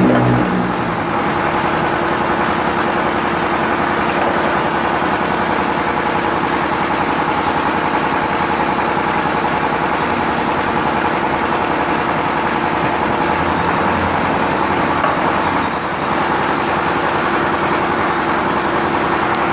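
Paving block machine running steadily, a continuous mechanical drone with a few held tones and no breaks.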